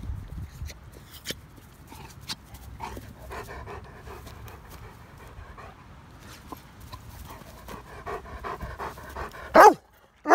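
Chocolate Labrador retriever panting in a steady rhythm at close range, with a brief loud burst of sound near the end.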